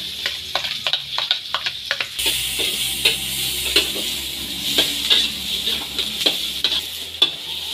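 Sliced shallots and garlic sizzling in hot oil in an aluminium wok, with a metal spatula scraping and clinking against the pan as they are stirred. The sizzle grows fuller about two seconds in.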